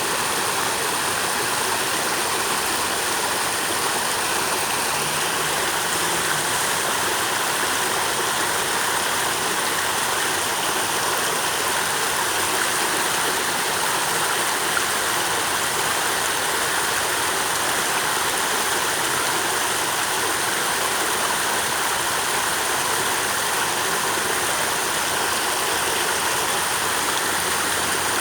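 Flowing water rushing steadily and evenly, with no change in strength.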